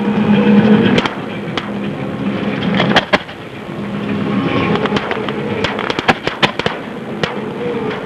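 Aerial fireworks going off: a rapid, irregular string of sharp bangs and crackling reports, the sharpest about three seconds in and a quick cluster a little past the middle, over a steady low hum.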